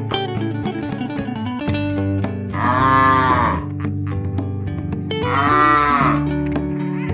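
Cattle mooing twice, each call about a second long, rising and then falling in pitch, the second coming about two and a half seconds after the first. Music with a plucked guitar plays underneath.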